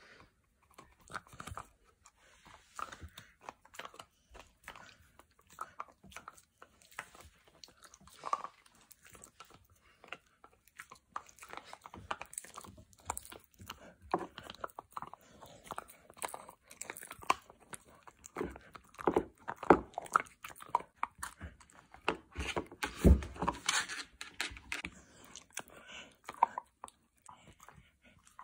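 A dog crunching and chewing a crumbly cookie close to the microphone: a long run of irregular sharp crunches and bites, busiest and loudest about two-thirds of the way through.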